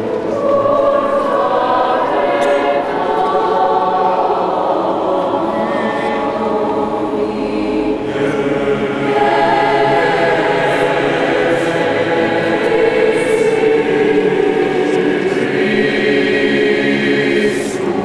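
Mixed choir of young men and women singing sustained chords in a cathedral's stone nave, the voices ringing in the large, echoing space.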